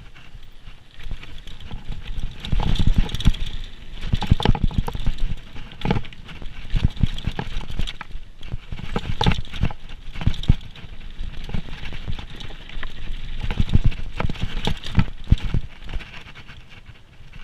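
Downhill mountain bike clattering over a rough trail: irregular knocks and rattles as it hits bumps, with low rumble on the GoPro's microphone.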